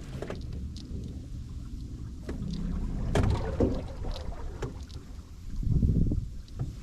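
Strong wind buffeting the microphone with a steady low rumble, over scattered knocks and handling noise from a small aluminium john boat; the rumble swells louder about three seconds in and again near the end.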